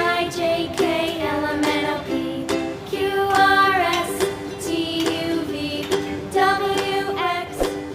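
Children's song: a sung melody over a bright plucked-string accompaniment with a steady beat.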